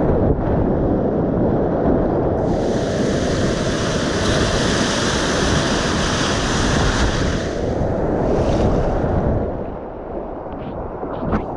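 Whitewater rapids rushing loudly and steadily, with a brighter hiss that swells and fades in the middle. The rush eases about nine and a half seconds in, and a short sharp knock comes near the end.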